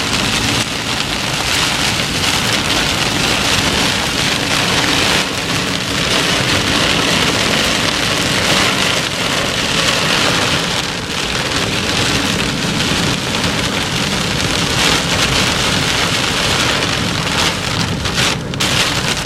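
Heavy rain pelting a moving car's roof and windshield, heard from inside the cabin, with water hissing up from the tyres on the flooded road. A loud, steady downpour.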